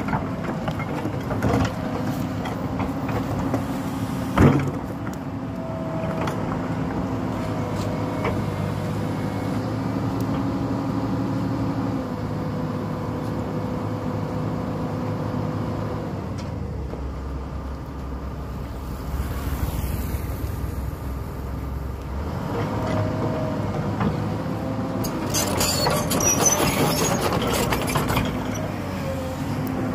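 Komatsu hydraulic excavator's diesel engine running steadily as it digs, with a sharp knock about four seconds in and a spell of rattling noise near the end.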